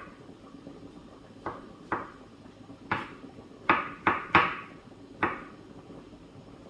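Kitchen knife slicing button mushrooms on a wooden cutting board: about seven uneven knocks of the blade on the board, the loudest three coming close together around the middle.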